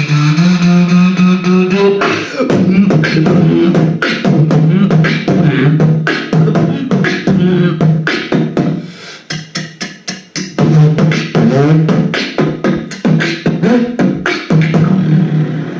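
Vocal beatboxing: a held hummed bass note for about two seconds, then a fast run of mouth-made drum clicks and snares over a hummed bass line. It thins out for a couple of seconds in the middle, then picks up again, with a held hum near the end.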